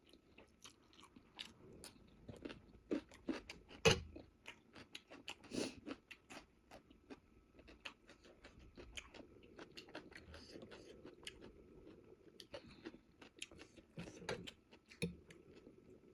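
Close-miked eating: a person chewing, with crunchy bites and many short, wet mouth clicks. The loudest bites come about four and five and a half seconds in.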